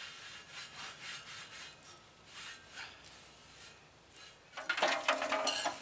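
A rag wiping and scrubbing the inside of a steel tractor disc blade wok (Portuguese wok): a series of rubbing strokes, becoming louder and harsher about four and a half seconds in.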